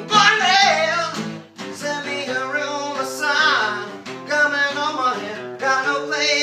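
Acoustic guitar being played, with a man singing over it.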